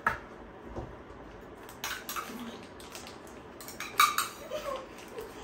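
Spoons clinking against stainless steel bowls as two people eat: a few separate sharp clinks, the loudest about four seconds in.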